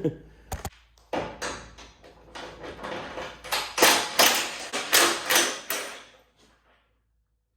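Winch kit parts and packaging being handled: a run of rustling, clattering and knocking sounds that ends about six seconds in.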